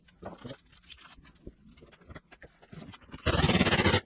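Small clicks and knocks of bolts and hardware being handled, then, about three seconds in, a loud burst of very rapid hammering lasting under a second and stopping abruptly: a power driver running a mounting bolt in.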